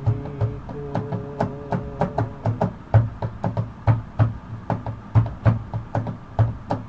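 Instrumental break in a Bengali folk song: a steady rhythm of knock-like percussion beats, about three a second, under a held melody note that fades out about two and a half seconds in.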